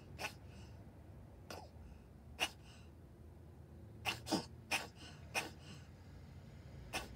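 A cat hacking in short, sharp coughs as it tries to bring up a hairball: about eight separate coughs, several of them bunched together a little past the middle.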